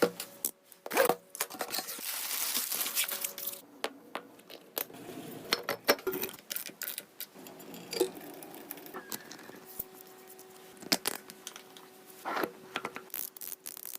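Irregular clicks, knocks and clinks with rustling in between, as of tools and metal parts being handled during a bike repair. A faint steady hum runs under the second half.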